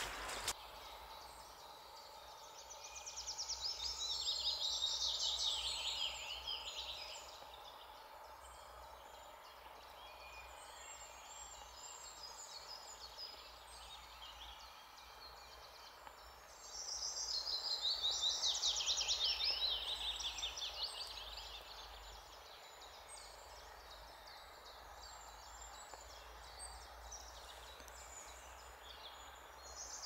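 A songbird sings two long, loud phrases of rapid, high repeated notes, about two seconds in and again about seventeen seconds in. Fainter calls of other birds continue in between.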